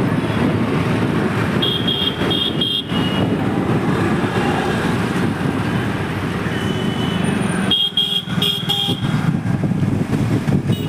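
Street traffic noise with vehicle engines running, and a few short, high vehicle-horn beeps in two groups, about two seconds in and again around eight seconds.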